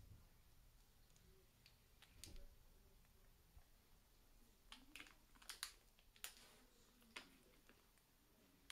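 A few faint clicks and taps of a small plastic Hatchimals figure and its wing pieces being handled and pushed into the figure's body, over near silence.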